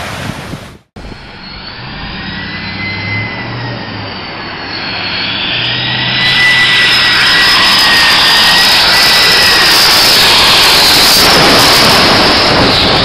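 Boeing 747's jet engines on low final approach: a high engine whine that wavers slightly in pitch and builds steadily louder, staying loud as the jet passes low overhead near the end. It is preceded by a second of wind noise on the microphone that cuts off abruptly.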